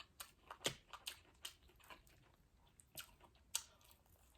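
Close-miked eating: a person chewing and biting into crispy fried food, with a quick run of sharp crunches and mouth clicks, a short lull, then two more crunches.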